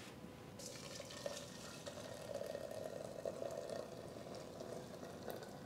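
Water poured from a kettle into a silver teapot, a faint steady splashing stream that begins about half a second in.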